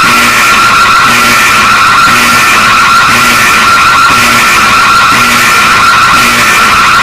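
Emergency alert alarm tone, loud, harsh and held steady, with a short low note pulsing about once a second beneath it.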